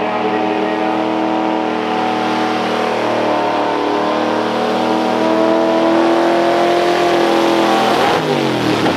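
1970 Chevrolet pickup's engine running at high revs under full load as the truck pulls the weight-transfer sled, with the pitch held high and nearly steady. Near the end the revs fall away sharply.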